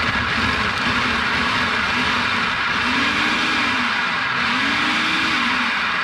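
Electric food processor running steadily, its chopping blade whirling through yellow squash.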